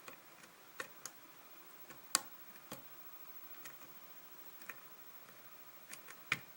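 Scattered small sharp clicks and ticks of a lock pick and tension wrench working the security pins of a pin-tumbler kick cylinder held in a false set, with a louder click about two seconds in and another near the end.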